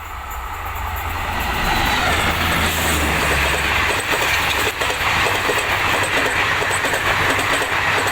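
Indian Railways Garib Rath express train running past at speed. It grows louder over the first two seconds, then holds a steady rush and rattle of coach wheels on the track, with a low hum that fades out about three seconds in.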